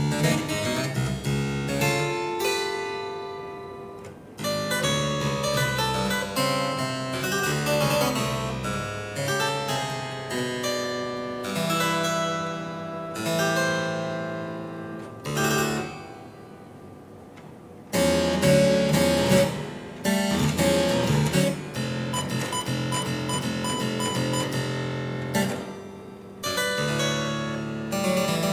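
Solo harpsichord playing a contemporary piece: phrases of plucked chords and runs, a few times left to die away before a loud new entry, with a passage of fast repeated notes in the second half.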